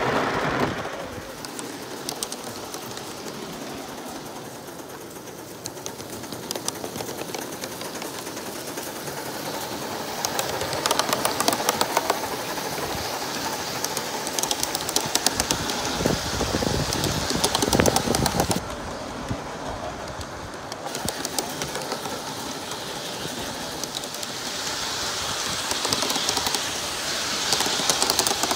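1/32 scale live-steam model of NSWGR 38 class Pacific 3820 running with a goods train, a quick patter of small clicks over a steady wash of sound.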